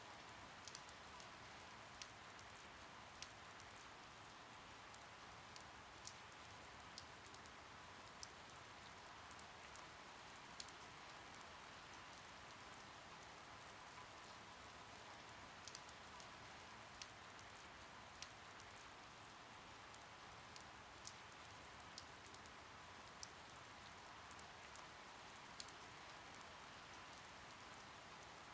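Faint steady rain, a soft hiss with scattered drops ticking irregularly on a surface.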